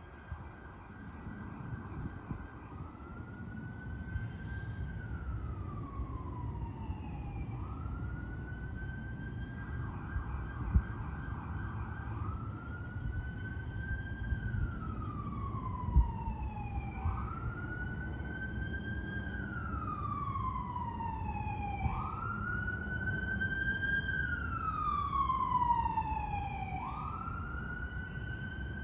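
Emergency vehicle siren wailing, its pitch rising quickly and sliding slowly back down about every five seconds, growing louder toward the end. Two brief sharp knocks sound about 11 and 16 seconds in.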